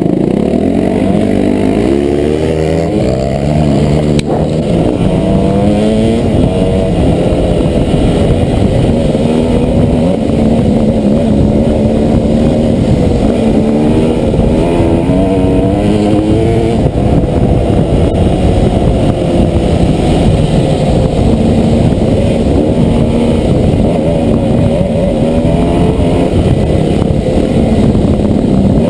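Dirt bike engine heard from the rider's helmet, pulling up through the gears: its pitch climbs and drops again with each shift in the first half, then holds steadier with smaller rises and falls.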